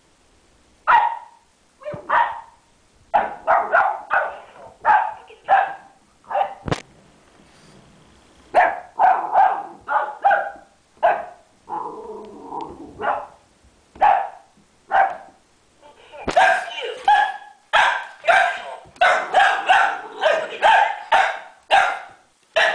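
Boxer puppy barking repeatedly in short yappy barks, in clusters that turn rapid and almost continuous over the last several seconds. One sharp knock sounds about seven seconds in.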